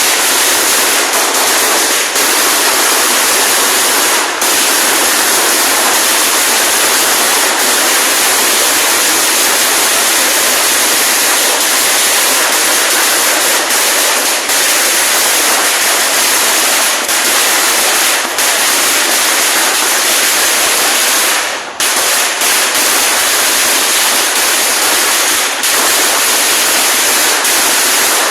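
A long string of firecrackers going off, the bangs so rapid and dense that they merge into one continuous loud crackling roar. It breaks off for a moment about three-quarters of the way through, then carries on.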